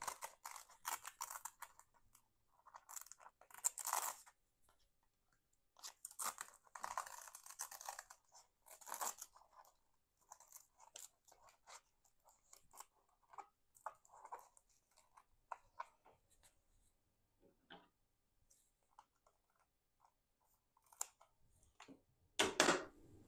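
Hook-and-loop garden Velcro plant tie being pulled, cut and fastened around a moss pole and bamboo stake: several short rips and crackles, then scattered small clicks and rustles, and a louder thump near the end.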